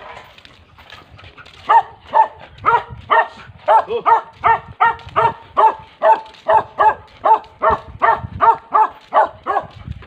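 A small dog barking in a steady, rapid run, about two to three barks a second, beginning nearly two seconds in.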